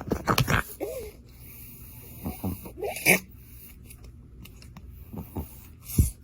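A pet animal making several short vocal cries whose pitch rises and falls, with a couple of sharp louder sounds, about three seconds in and again near the end.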